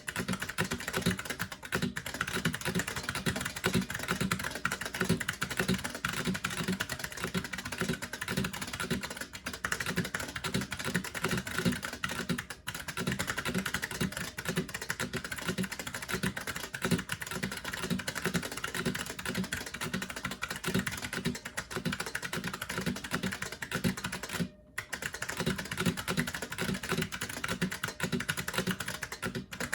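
Continuous fast typing on a Model F77 keyboard, its buckling-spring keys clicking in a dense stream, with one brief break late on.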